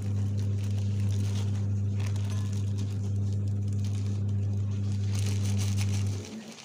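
A steady low hum starts sharply and cuts off near the end, over the crinkling of a plastic bag as wheat flour is poured from it into a metal bowl.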